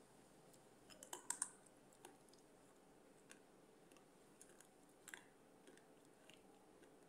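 A quick cluster of sharp, crisp crunches about a second in as a piece of baked clay pot is bitten and cracks, followed by a few scattered faint clicks of the clay being chewed.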